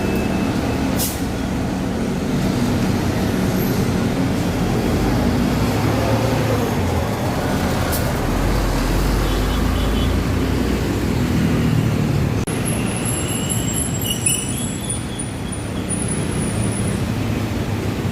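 Street traffic at a city bus stop, with a Transjakarta bus engine running. A deeper rumble swells through the middle as a heavy vehicle moves past, and thin high squeaks come a little after.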